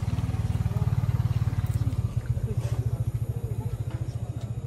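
A low, steady engine rumble with a rapid, even throb, and faint voices in the background.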